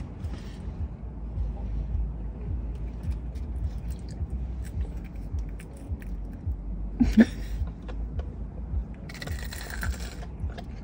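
Low steady rumble of a car's interior, with scattered small clicks and a brief rustle about seven seconds in and a longer one of about a second near the end.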